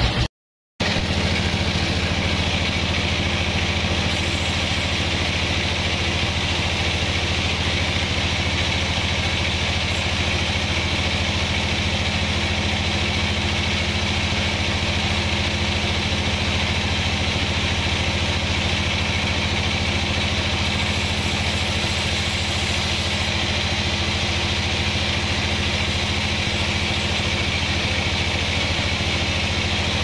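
Vertical band sawmill running steadily, its blade sawing lengthwise through a teak log: a constant motor drone with a steady hiss above it. The sound drops out for about half a second just after the start.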